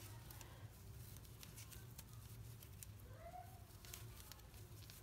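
Near silence: a steady low hum with faint scattered ticks of crochet handling, the hook and cord yarn being worked. About three seconds in there is a faint short cry that rises then falls.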